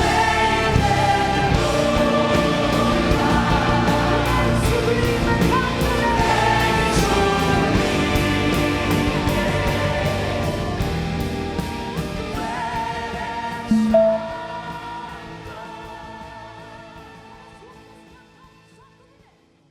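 Christian worship band music with group singing. The beat stops about two-thirds of the way through, and the sustained music then fades out to almost nothing by the end.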